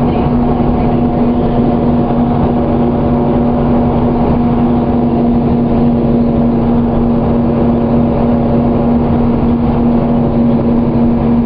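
Cabin sound of a 2001 New Flyer D35LF transit bus under way, its Cummins ISC inline-six diesel running steadily, with a steady hum and road noise and no change in speed.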